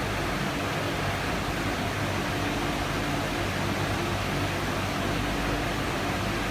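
Metal-cleaning machinery running steadily: a constant hum with an even rushing hiss over it.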